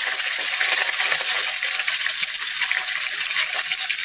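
Tilapia deep-frying in hot cooking oil in a wok: a steady sizzle with dense crackling pops.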